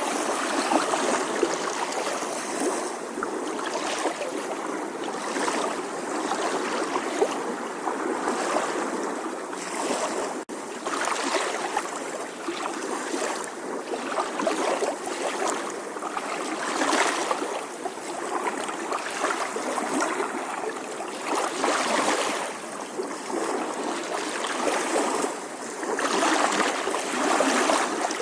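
Gentle sea waves lapping on a shore: a steady wash of water that swells and eases every few seconds, with a brief dropout about ten seconds in.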